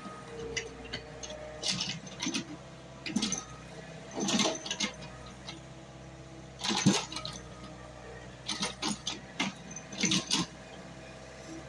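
JCB excavator at work: a steady low engine hum with irregular scraping and clattering noises a second or two apart, the loudest about seven seconds in.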